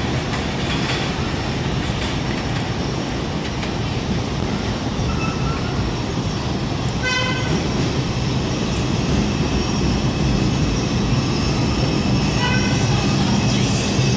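An R142 subway train approaching along an elevated line: a steady rumble that grows a little louder as it nears, with two short horn toots, about seven seconds in and again near the end.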